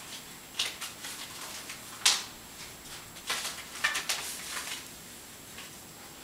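A cat licking another cat's ear fur: a handful of short, scratchy rasps with quiet gaps between them, the sharpest and loudest about two seconds in.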